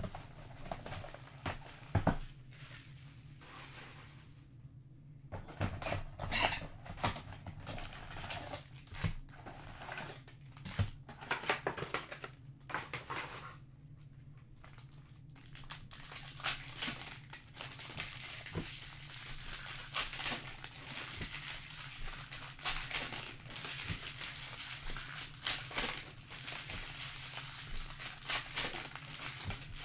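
Plastic wrapping on a hobby box of trading cards crinkling and tearing as the box and its packs are opened by hand, in irregular crackles that grow busier about halfway through.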